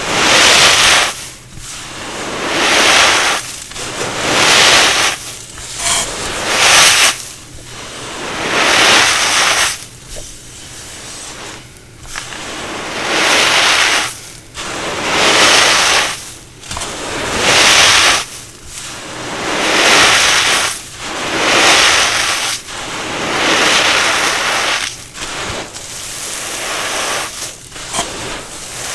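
Fragile dried cornstarch chunks being crushed and crumbled, in a long series of crunches that swell and fade about every two seconds.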